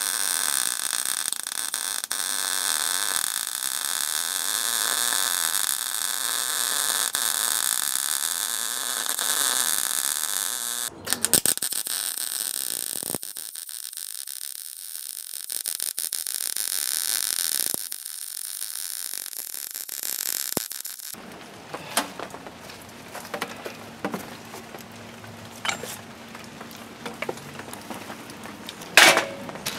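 Arc welding on a steel bracket: a steady crackling hiss for about eleven seconds, then, after a few clicks, a second, quieter stretch of welding. Near the end, steel pieces are handled and knock together, with one loud clank.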